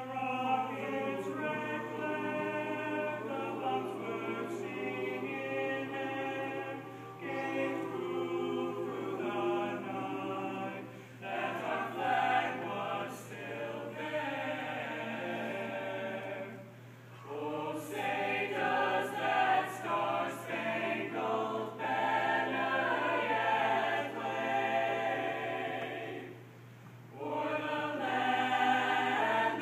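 Mixed jazz choir singing the national anthem a cappella in several-part harmony, with brief pauses between phrases.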